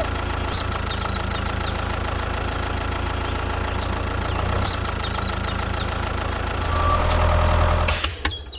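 Tractor engine idling with a steady drone, growing louder and changing pitch about seven seconds in, then cutting off abruptly near the end.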